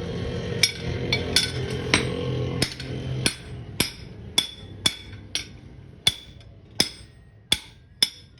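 Blacksmith's hammer striking iron on an anvil: about fourteen ringing metallic blows, a little under two a second. A low steady rumble underneath fades out over the first few seconds.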